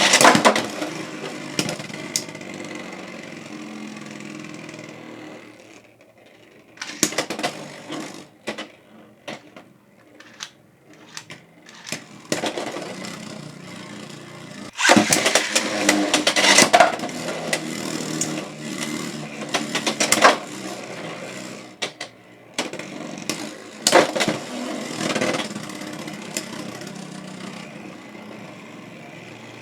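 Beyblade X tops, the Draciel Shield 7-60D among them, launched into a plastic stadium and spinning and clashing: a loud launch near the start, again about 15 seconds in and about 24 seconds in, each followed by a steady spinning rattle that fades, with sharp clicks of launchers and tops being handled between battles.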